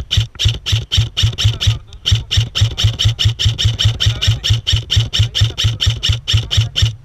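Airsoft rifle firing close to the microphone, a rapid, even string of shots at about five to six a second, each a sharp crack with a low thud. It pauses briefly twice and stops near the end.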